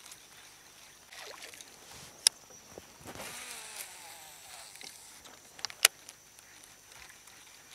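River current swirling and gurgling around the base of a palm trunk standing in the water, with two sharp clicks a few seconds apart that are the loudest sounds.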